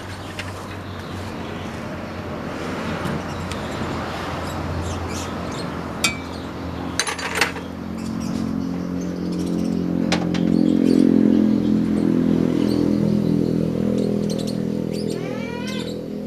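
Kubota DC70 combine harvester's diesel engine running, picking up speed about halfway through and easing back toward the end, with a few sharp metallic clicks near the middle.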